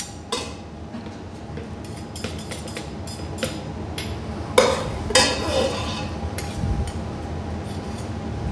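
Metal skimmer and large spoon clinking and scraping against a metal saucepan as cooked onions are pressed and lifted out, with scattered light clinks and two louder knocks about halfway through.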